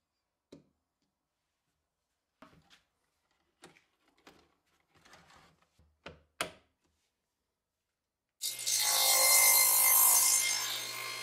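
Faint clicks and light knocks of a metal toggle hold-down clamp being handled and set in a T-track, then about eight seconds in a table saw starts loud and abruptly, running with a steady motor hum under the noise of the blade cutting wood.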